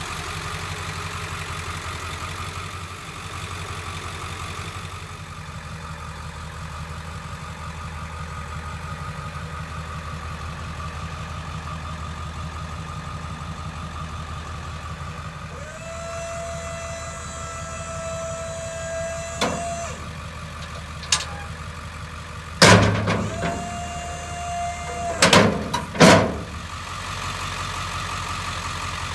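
Ford F550's 7.3L Powerstroke V8 turbo-diesel idling steadily. About halfway through, a steady whine sounds for about four seconds, and a shorter one comes later. Several loud clanks fall between about two-thirds of the way in and near the end.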